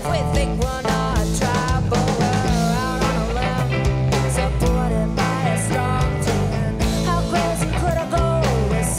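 Live rock band: a woman singing lead over electric guitar, bass guitar and drums.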